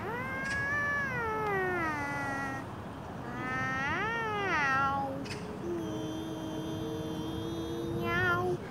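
Long drawn-out meows traded between a cat and a young girl meowing along with it: two meows that rise and then fall, then a long steady meow near the end with two voices held at different pitches together.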